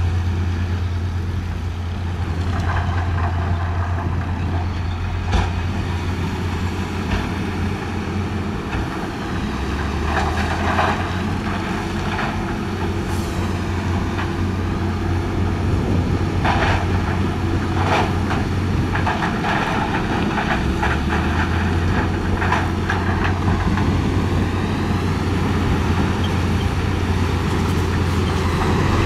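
Heavy diesel dump truck engines running steadily. The engine note drops about a third of the way in and comes back up about two-thirds in, while a truck raises its bed to tip a load of gravel. Several short rushes of noise come through now and then.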